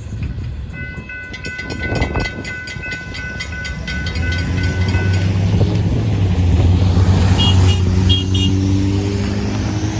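Railroad grade-crossing bell ringing in fast, even pulses, stopping about five seconds in. Then road vehicles pull away across the tracks, their engines rising in pitch and getting louder.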